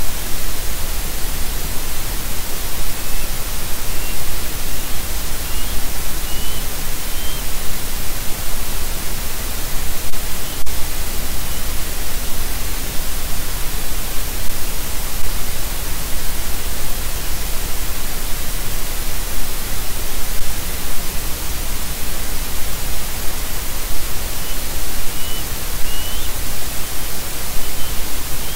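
Loud, steady hiss of static on a nest camera's audio feed. Faint short high chirps come through it a few seconds in and again near the end, and there is a single click about ten seconds in.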